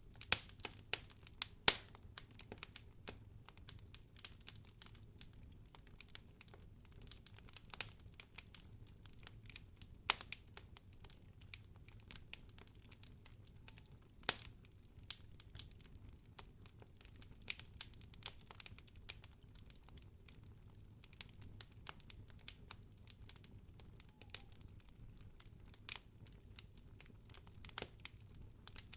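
Campfire of burning firewood crackling: irregular sharp pops and snaps, a few of them much louder, over a low steady rush of the fire.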